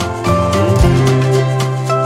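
Background music: sustained pitched notes over a steady beat.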